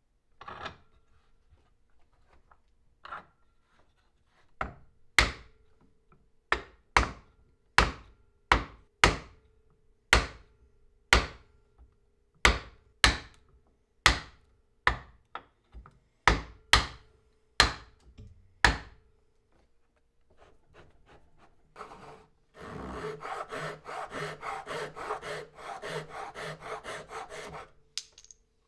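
Wooden mallet striking a wood-handled chisel, about two dozen sharp blows at one to two a second, chopping out the waste of a half-lap joint in hardwood. Near the end comes a few seconds of fast back-and-forth rasping strokes on the wood.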